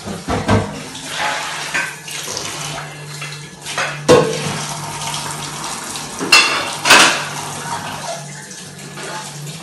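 Kitchen clatter of dishes and utensils: bowls, plates and spoons clinking and knocking. The sharpest knocks come about four, six and seven seconds in, over a steady low hum.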